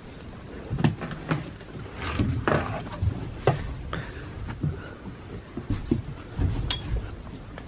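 Irregular footsteps, knocks and thuds as someone steps aboard a moored fibreglass boat from a wooden jetty, with camera handling noise.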